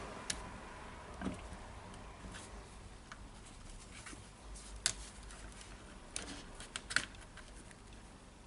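Scattered faint clicks and light taps as wires and small plastic parts are handled inside an opened cordless circular saw's housing, over a low steady hum.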